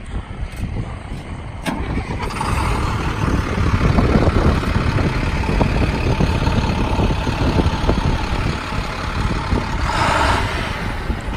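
2011 International DuraStar's diesel engine starting about two seconds in, then settling into a steady idle with a faint whine. A brief rush of noise comes near the end.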